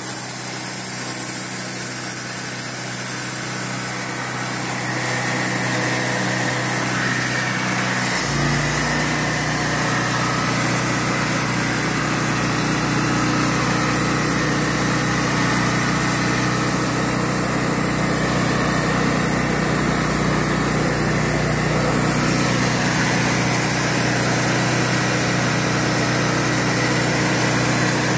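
Engine of a portable bandsaw sawmill running steadily under load as the band blade saws boards from a cedar cant. About eight seconds in, the engine note shifts and a deeper rumble joins, as the load on the mill changes.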